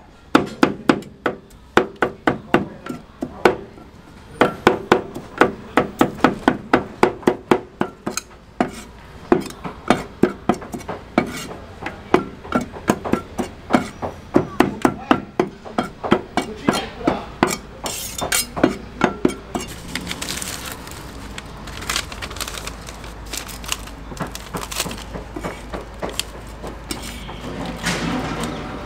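Two cleavers chopping fast on a chopping block to mince green pepper, a steady run of sharp knocks several times a second with a ringing tone. About twenty seconds in the chopping stops and gives way to softer scraping as the minced filling is gathered up with the cleaver.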